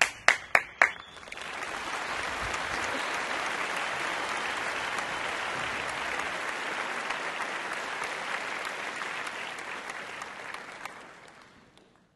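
A few sharp single hand claps, then from about a second in dense applause of many people clapping, which fades out near the end.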